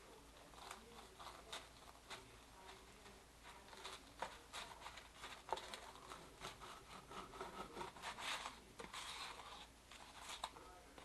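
Faint scraping and rubbing with scattered light clicks: kitchen handling noise.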